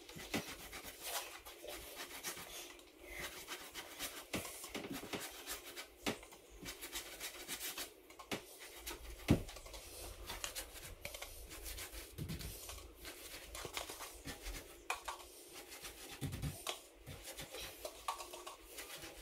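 Paintbrush bristles rubbing PVA glue onto the raw chipboard cut edge of a kitchen worktop's sink cutout: irregular scratchy strokes with small clicks and taps, sealing the edge against water.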